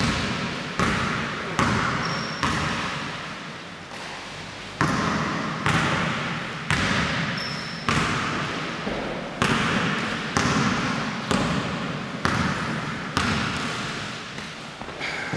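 Basketball dribbled on a hardwood gym floor: sharp bounces about once a second, each ringing out in the hall's echo, with a pause of about two seconds around three seconds in.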